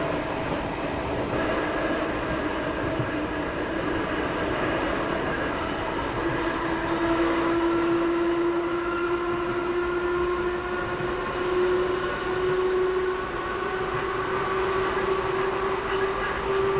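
Seibu 571 series electric train running, its nose-suspended traction motors and gears whining. The whine rises slowly in pitch from about six seconds in as the train gathers speed.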